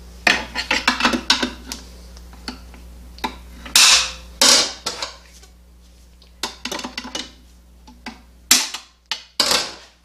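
Screwdriver working a steel snap ring out of its groove in a GM 4T65-E transmission case: bursts of small metallic clicks and ticks, broken by several short, harsh metal-on-metal scrapes.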